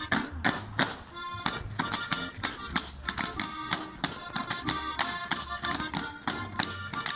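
Button accordion playing a lively Tyrolean folk tune, with the sharp slaps and stamps of Schuhplattler dancers striking their thighs and shoe soles, several a second, in time with the music.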